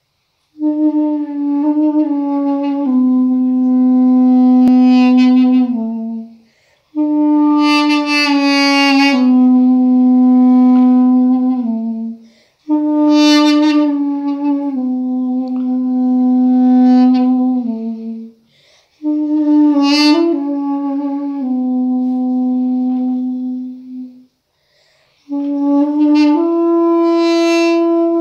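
Solo Armenian duduk playing a slow, mournful folk melody: five phrases of about five seconds each, each sinking to a long held low note, with short pauses for breath between them.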